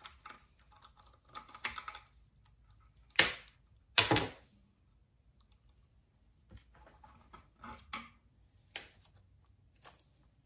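Scattered light clicks and taps of a nut driver and hands on the plastic and metal parts of a Hi-Blow linear air pump as its diaphragm is taken off, with two sharper clicks about three and four seconds in.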